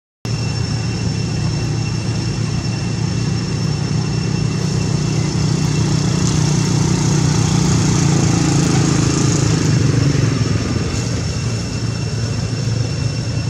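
Motorbike engine running steadily, its pitch rising and falling a little toward the middle, with a thin steady high tone above it.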